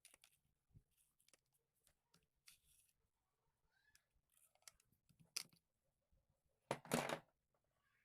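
Quiet handling sounds of parts and tools being worked on: scattered light clicks and rustles, a sharp click about five seconds in, and a short rasping scrape of about half a second near the end.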